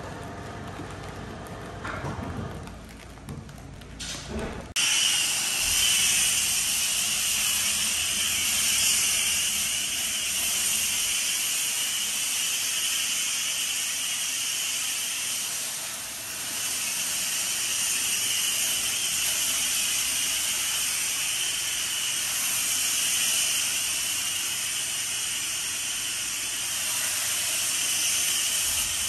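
High-pressure washer jet rinsing the foam off a sewer truck: a loud, steady hiss that starts abruptly about five seconds in and dips briefly about halfway through. Before it, quieter mixed sounds with a few knocks.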